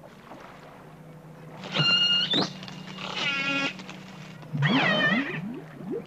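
Killer whale calls: three high, shrill cries about two, three and five seconds in, the first a held tone that rises at its end, the second buzzy, the third wavering, over a low steady hum. They are recorded wild killer whale cries played back into a tank, answered by a captive killer whale.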